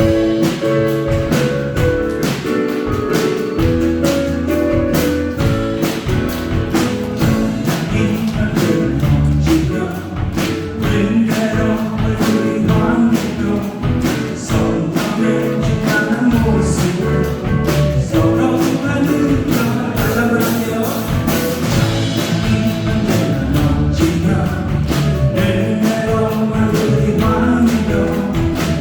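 Live contemporary worship band playing a praise song, with a steady drum beat under sustained instrument chords and singing. It comes in suddenly at the start and stays at full volume.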